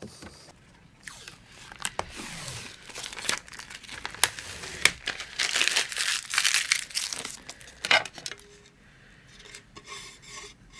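Thin plastic and paper packaging being crinkled and torn by hand: a rustling hiss broken by sharp clicks, dying down after about eight seconds.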